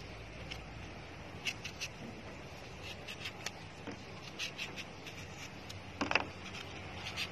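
A small kitchen knife cutting and scraping through the skin of a green mango as it is peeled, in a series of short crisp cuts with a louder one about six seconds in.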